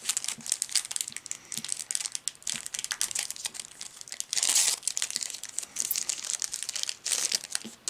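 Foil wrapper of a Yu-Gi-Oh booster pack crinkling in the hands, then torn open with a longer rip about four seconds in and crinkling again near the end as the cards are pulled out.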